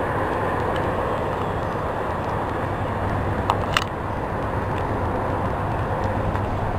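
Steady rain falling through the leafy forest canopy, an even hiss with two short sharp ticks about halfway through.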